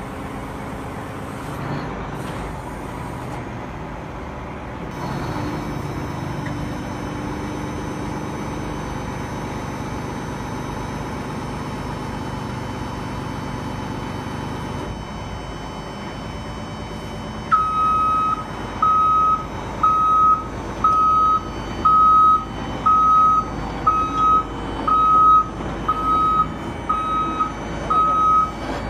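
Hydraulic excavator running steadily, its engine and hydraulics humming. A little over halfway through, a high warning beeper starts, sounding about once a second.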